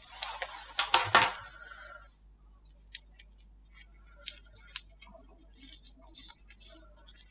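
Slime being worked for ASMR: a dense wet crackling for the first two seconds, loudest about a second in, then scattered small clicks and pops.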